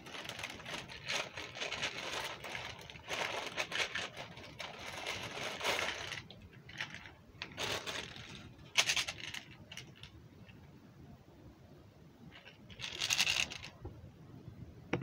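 Scraping and rustling of things being handled, dense and irregular for the first six seconds, then a few short separate bursts with quieter stretches between.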